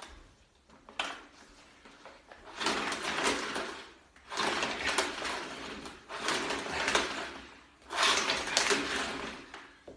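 A vacuum cleaner that will not switch on being handled and tried: a click about a second in, then three long bouts of rattling, scraping handling noise, with no motor starting.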